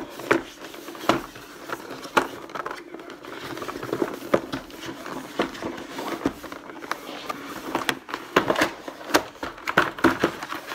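Cardboard product box handled: scraping and rustling with a series of sharp knocks and taps as the box is moved and turned, and its lid is lifted off near the end.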